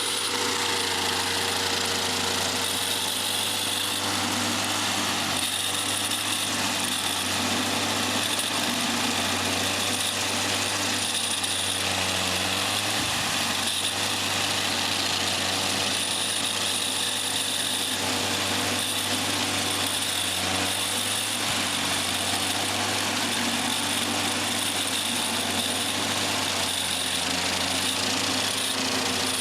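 Stump grinder running steadily, its engine drone mixed with the grinding of the cutter wheel.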